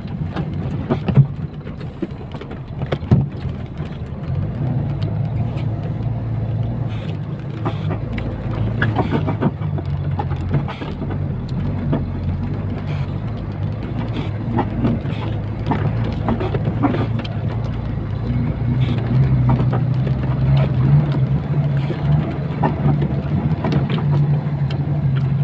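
KamAZ 65115 truck on the move, its diesel engine running steadily in the cab, with short creaks and knocks coming again and again from the cab's hydraulic cab locks behind the seat: the locking pin creaking and knocking as the cab rocks on its mounts.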